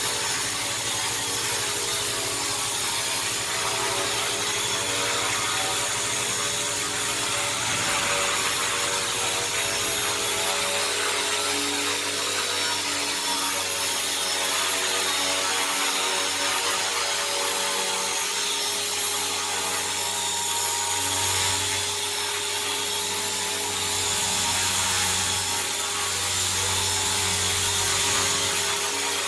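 WLtoys V950 brushless RC helicopter hovering, its electric motor and rotor running with a steady buzzing whine, swelling slightly a few times in the second half.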